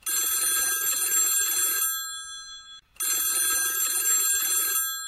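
Desk telephone ringing twice, each ring a bell-like trill of about two seconds that fades out, with a brief pause between the rings.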